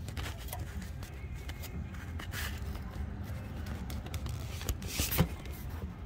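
Rustling and light clicks of handling over a low steady rumble, with a sharper knock about five seconds in.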